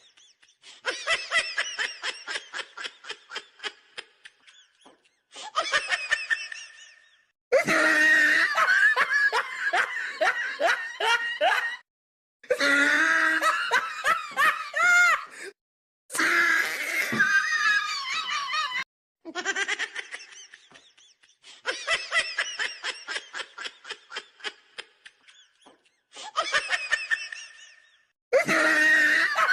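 Repeated bouts of a person's laughter in rapid rhythmic ha-ha pulses, each bout a few seconds long and several of them cutting off abruptly, as if laughing clips were edited together.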